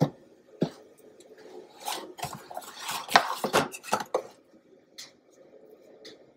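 Silicone spatula scraping and knocking against a thin aluminium foil pan as cake batter is spread in it. A couple of sharp knocks at the start, a busy run of scrapes in the middle, then a few light taps.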